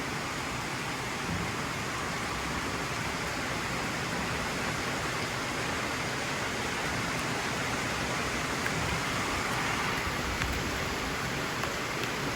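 Rain falling steadily, an even hiss with no distinct drops or thunder.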